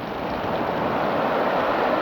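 Ocean surf washing over a beach of small rounded rocks, a steady rushing that swells louder as a wave comes in.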